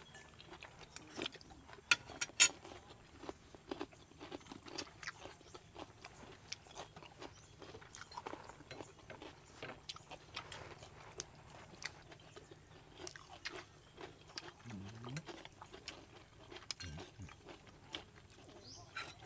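Sounds of a meal: spoons clicking against bowls and plates and quiet chewing, with two sharper clinks about two seconds in. Two brief low vocal sounds come near the end.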